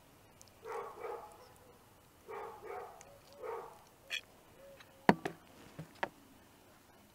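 A dog barking, three times in short bursts of one or two barks. About five seconds in come a few sharp clinks, louder than the barking.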